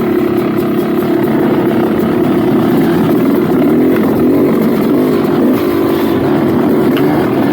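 Yamaha dirt bike engine running hard under riding, the revs rising and falling as the throttle is worked.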